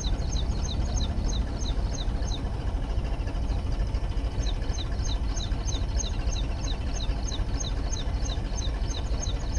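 Tractor's diesel engine running steadily under load, driving a belt-pulley irrigation water pump. Over it, a high, falling chirp repeats about three times a second, with a two-second break in the middle.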